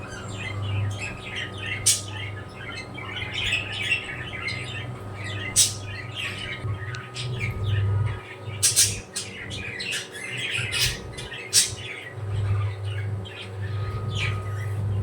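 A flock of pet birds chirping continuously, with about five sharp, loud squawks cutting through.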